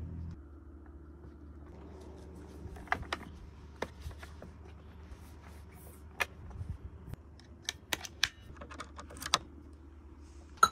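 Steady low hum from the powered-up guitar setup, with a scattered series of sharp clicks and knocks as cables, a guitar and an audio interface are handled and a jack is plugged in.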